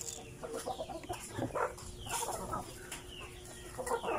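A flock of domestic chickens clucking while they peck at scattered feed: a run of short, separate clucks and calls, some of them dropping in pitch.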